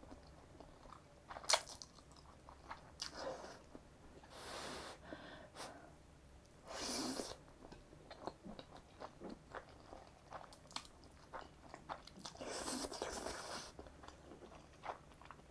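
Noodles being slurped and chewed: several long slurps of jjapaghetti noodles, with wet chewing and small mouth clicks in between.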